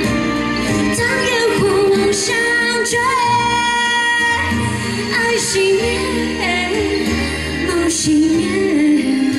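Female singer singing a Mandarin pop song live into a handheld microphone, over instrumental accompaniment. She holds one long, steady note near the middle.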